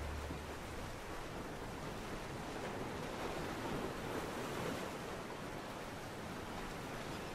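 Steady, even rush of lake waves and wind, with wind buffeting the microphone.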